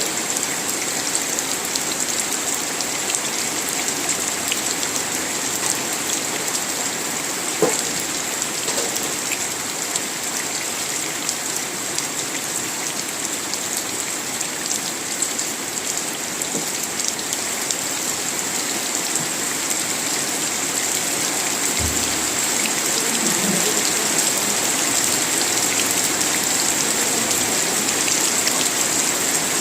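Steady rain falling, with scattered individual drops ticking; it grows a little louder about two-thirds of the way through.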